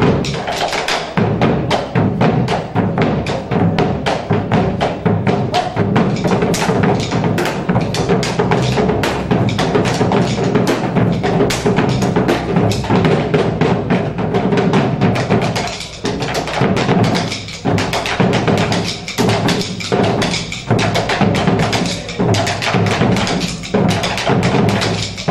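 Malambo: the dancers' rapid, rhythmic foot-stamping (zapateo) over drum and music, the stamping breaking into separate accented groups with short gaps in the second half.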